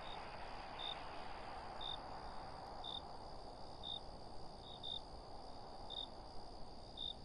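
Crickets chirping, short high chirps about once a second, over a steady high insect drone and a soft, even background hiss.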